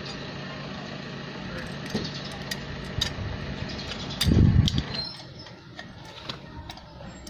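Suzuki Raider 150 motorcycle engine idling, with a short loud rev about four seconds in, after which the sound falls quieter. Light sharp clicks are scattered over the idle.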